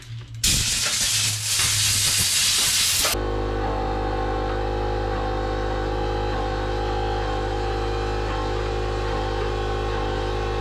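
Blast of compressed air, a loud hiss blown at the vacuum cleaner's small filter to clear the dust, lasting about three seconds and cutting off sharply. A steady motor hum with a whine starts as the hiss stops and runs on unchanged.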